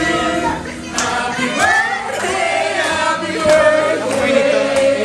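Singing with music: several voices holding long notes that glide up and down.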